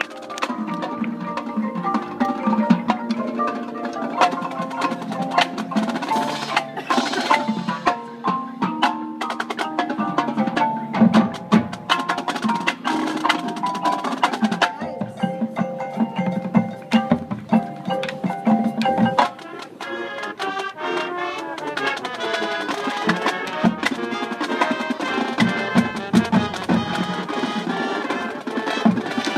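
High school marching band playing, with percussion strokes and ringing pitched notes prominent throughout and a brief drop in level about two-thirds of the way through.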